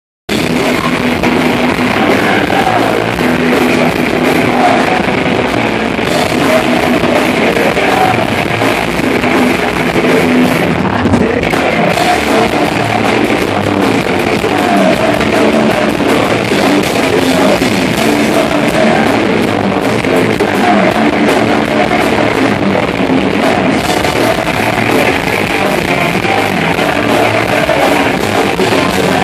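Live rock band playing a loud song with electric guitar, bass and drums, and a man singing. It is a crowd recording with poor sound.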